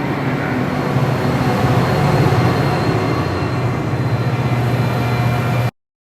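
Train running: a steady rumble with a low hum and hiss, growing slightly louder, then cutting off abruptly near the end.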